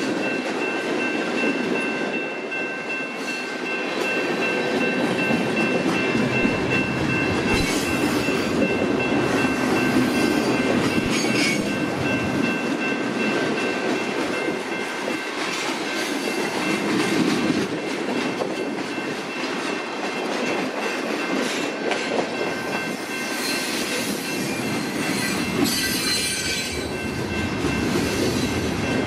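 Freight cars (tank cars, covered hoppers and boxcars) rolling past close by: a steady rumble and clatter of steel wheels on the rails, with a steady high-pitched tone over it and brief bursts of higher hiss from the wheels now and then.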